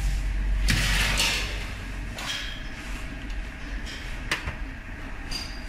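Hot-air heat-shrink tunnel oven with its wire-mesh conveyor running: a steady low hum, a rushing swell about a second in, and a sharp click about four seconds in.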